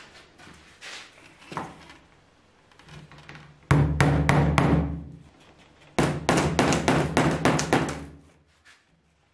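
Small hammer tapping small nails into a board, in two quick runs of light blows, about five or six a second: a short run near the middle and a longer one soon after, with a few soft taps before them.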